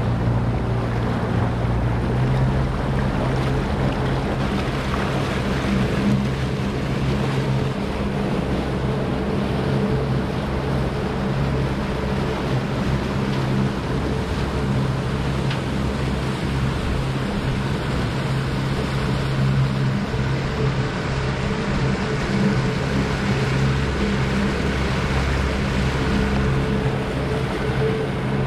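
A 115-horsepower outboard motor running at a steady speed, pushing the aluminum boat along, with water rushing and splashing along the hull and wind in the microphone.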